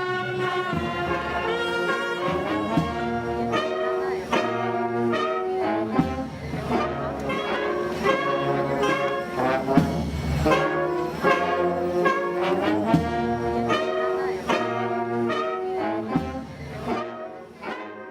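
Brass band music, trumpets and trombones playing a melody over regular drum beats, fading out near the end.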